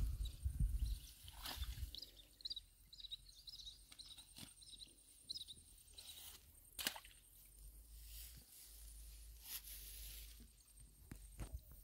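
Quiet outdoor pond-side ambience: faint small-bird chirps in the first half, a few sharp clicks and rustles of handling and footsteps in grass, and a low wind rumble on the microphone around eight to ten seconds in.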